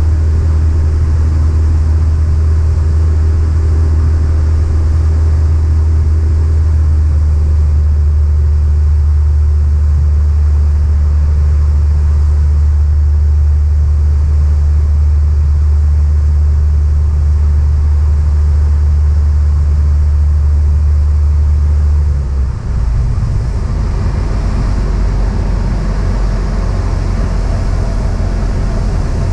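Cessna 172's piston engine and propeller droning loudly and steadily. About 22 seconds in, the drone's note drops suddenly and it carries on lower.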